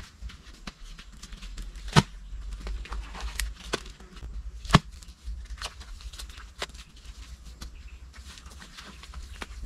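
Footsteps and handling of loose earth as soil is tipped out of a woven basket onto a dirt mound and pressed down by hand, with many small clicks and two sharp knocks, one about two seconds in and the other near the five-second mark.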